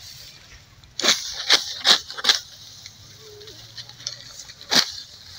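Hand sickle cutting through dry, ripe wheat stalks: four quick crisp cuts about a second in, then one more near the end.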